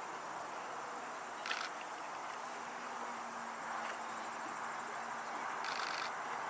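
Steady outdoor background hiss with a faint insect-like buzz, broken by two brief hissy bursts, one about a second and a half in and one near the end.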